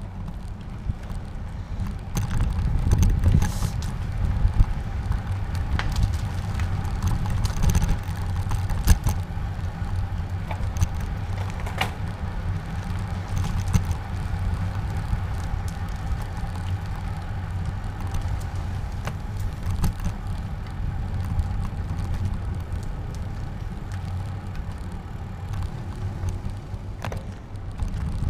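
A bicycle being ridden on city pavement: a steady rumble of wind and road vibration on the camera's microphone, with scattered clicks and rattles from the bike over bumps.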